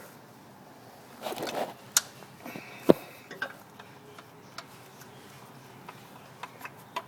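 Scattered sharp metal clicks and taps as a screwdriver works a fork part into alignment. There is a short scraping rustle about a second in and the loudest click near three seconds.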